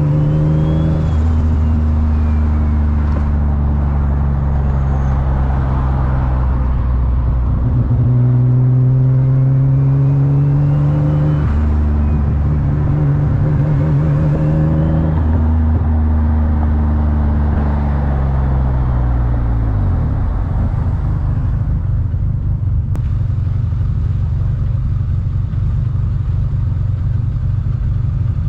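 Single-turbo VQ35DE V6 of an Infiniti G35 coupe heard from inside the cabin, pulling through the gears: the engine note climbs and then drops at each shift, with a faint turbo whistle rising and falling above it. About two-thirds of the way in it slows and settles into a steady low drone.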